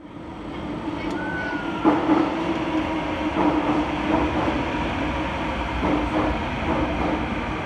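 Inside a Thomson-East Coast Line Kawasaki-CRRC T251 metro train: a steady hum fading in at the start, with a short high tone about a second in and several knocks, the loudest about two seconds in.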